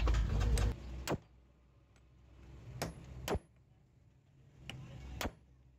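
Hammer striking a steel tube used as a drift to press a 6004 ball bearing into an AC compressor clutch pulley held in a vise: about five short, sharp knocks at uneven intervals, the loudest a little past three seconds in.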